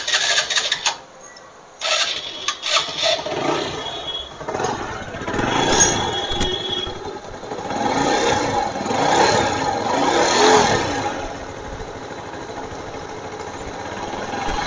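TVS Phoenix 125's single-cylinder four-stroke engine, freshly reassembled, cranked and catching about two seconds in. It is revved up and down several times and then settles to a steady idle.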